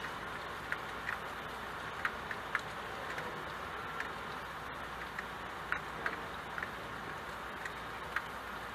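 Steady rain hiss with irregular sharp ticks of single drops striking a glass window pane, about a dozen scattered through.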